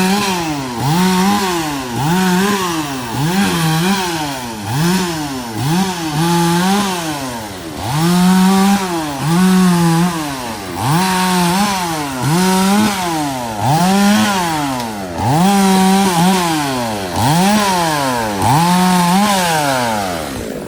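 Two-stroke chainsaw revved again and again, about once a second. The engine climbs to full throttle, sometimes holds there briefly, then drops back toward idle.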